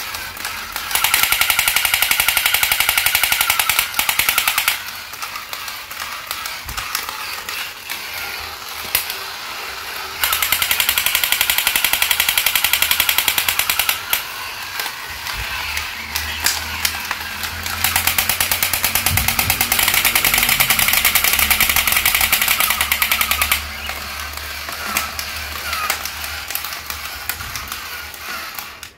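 Battery-operated crawling soldier toys playing their electronic machine-gun sound effect: three loud bursts of rapid rattling fire, each about four to five seconds long. A quieter mechanical rattle runs between the bursts.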